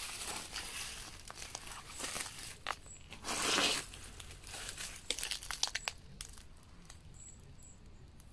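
Footsteps rustling and crackling through dry grass and undergrowth, with a louder rustle about three seconds in, growing fainter after about six seconds.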